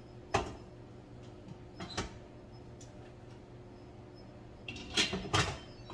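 Metal knocks and clunks of an Instant Pot being loaded: the stainless steel inner pot knocks into the cooker base about half a second in, another knock comes about two seconds in, and a quick cluster of clunks and clicks near the end as the lid is set on and twisted shut.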